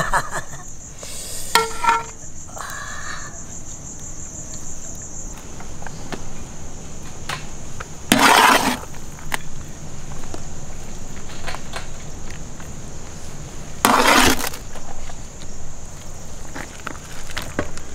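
Insects drone steadily at a high pitch. A few ringing metal clinks come in the first two seconds, and two short, loud rushing scrapes come about eight and fourteen seconds in.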